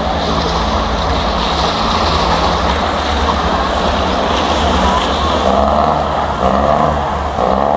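Engines running with a steady low drone, with people's voices coming in over it in the second half.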